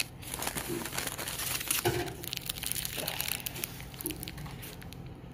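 Brown paper bag rustling and crinkling as a hand rummages inside it and pulls out a snack bar in a crinkly plastic wrapper: irregular crackles throughout.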